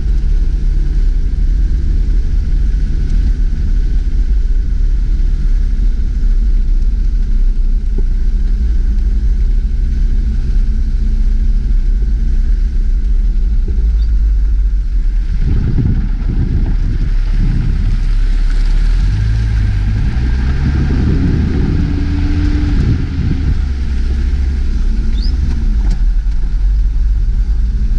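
A vehicle engine running as it drives slowly along a gravel track, heard from inside the cab: a steady low hum for the first half, then the engine note changes, rising and falling for several seconds, before it settles again near the end.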